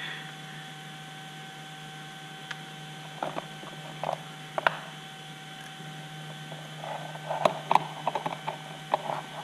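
Hands fitting a brushless motor to its mount with small screws and a hex driver: scattered small clicks and taps of metal parts, more frequent in the second half, over a steady low hum.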